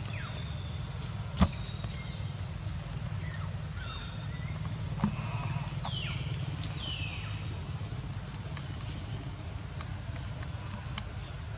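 Outdoor ambience over a steady low rumble: birds calling in short, high falling chirps and whistles, with a sharp knock about a second and a half in and a smaller one about five seconds in.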